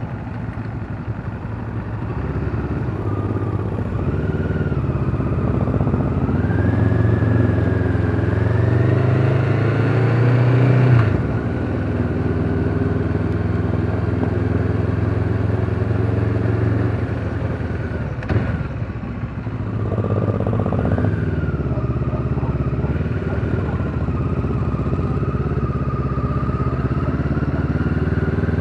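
Motorcycle engine heard from the rider's seat while riding, revs climbing for several seconds and then dropping off sharply about eleven seconds in as the throttle is shut. A short knock and lull come a little after the middle, and the engine then pulls up again and runs on steadily.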